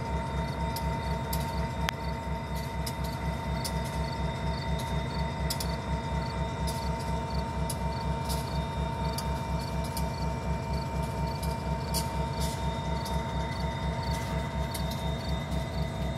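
Diesel locomotive idling close by: a steady, rapid low throb from the engine with a constant whine above it.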